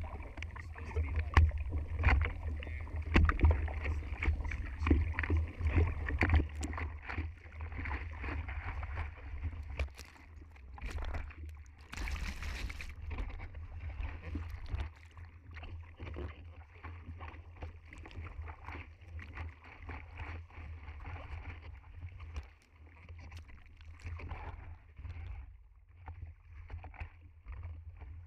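Sea water sloshing and splashing against a surfboard, heard close up through a board-mounted action camera, with a steady low rumble of water and wind buffeting the microphone. A brief louder splash comes about twelve seconds in.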